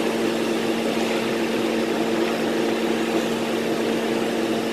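A steady mechanical hum at one constant pitch, with a hiss above it, unchanging throughout.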